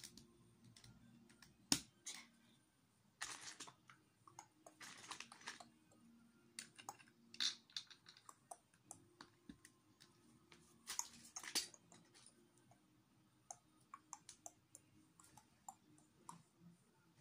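Plastic Lego bricks being handled and pressed together: a run of faint, irregular small clicks, with a few brief rustles of loose pieces among them.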